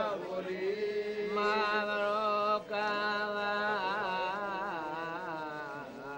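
Background music: a slow vocal chant of long held, ornamented notes over one steady drone note, with a short break for breath partway through.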